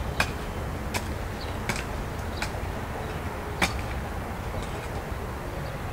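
Wind buffeting the microphone as a steady low rumble, with five sharp knocks at irregular intervals of under a second, the loudest about three and a half seconds in.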